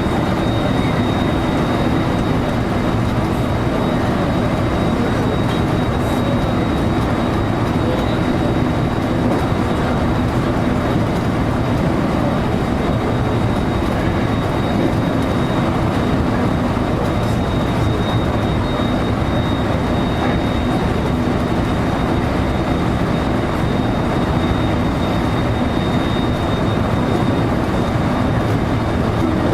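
JR local electric train running steadily, heard from inside the front car: continuous wheel-and-rail rumble with a thin, steady high whine.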